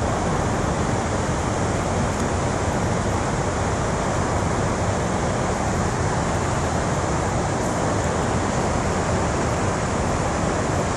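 Steady rushing of a fast-flowing river running over shallow rapids.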